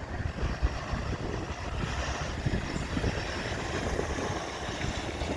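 Wind buffeting the microphone: a steady rushing noise with an irregular low rumble.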